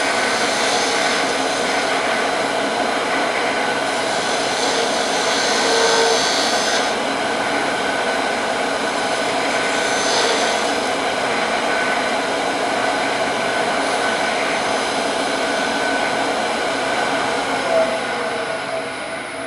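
Wood lathe running with a steady motor whine while a gouge cuts a walnut handle. The cutting hiss swells a few seconds in and again about ten seconds in, and the sound drops away near the end.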